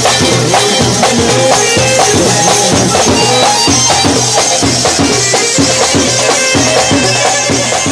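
Instrumental Arabic band music: a sustained reedy melody line over a dense, steady percussion beat.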